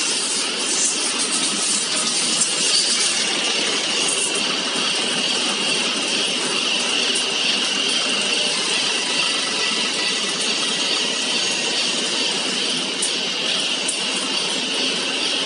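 Steady factory machinery noise: an even, continuous hiss with a brighter, higher-pitched band running through it, and a few faint clicks.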